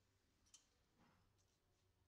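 Near silence, with one faint sharp click about half a second in and a softer faint noise about a second in.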